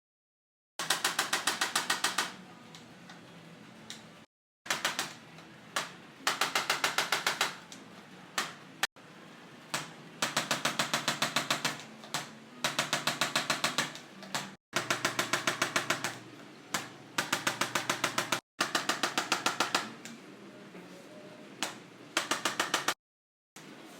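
Handheld chiropractic adjusting instrument firing rapid, evenly spaced clicks, about nine a second, in repeated runs of one to two seconds.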